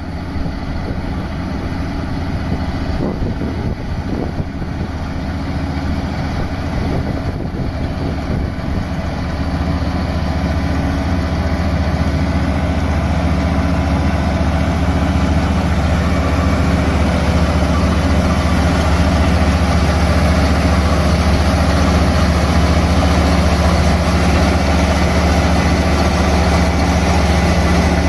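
Rice combine harvester's engine running steadily with a deep hum, growing louder over the first half or so and then holding level.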